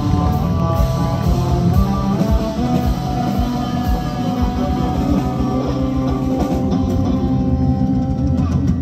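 Live rock band playing an instrumental passage without vocals: electric guitar lines over bass and drum kit. These are the closing bars of the song, with the low end dropping away right at the end.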